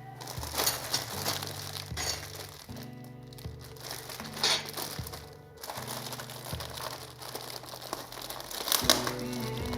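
Packaging being handled and unwrapped, crinkling and rustling in short bursts, over background music.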